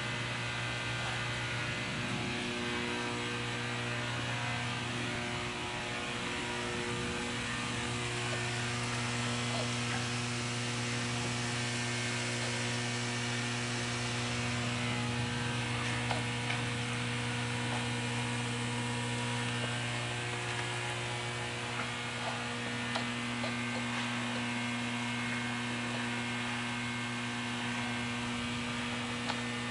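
Steady electrical hum at mains frequency over a constant hiss, with a few faint small ticks in the second half.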